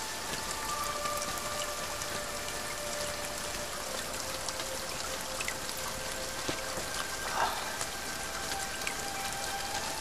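Steady rain falling and streaming off a roof edge, a continuous hiss scattered with sharper individual drips.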